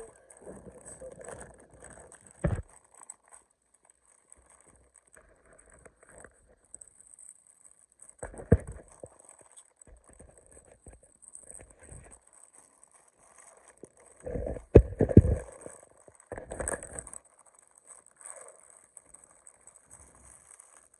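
Handling noise: intermittent rustling and scraping with a few sharp knocks and thumps, the loudest cluster a little past the middle.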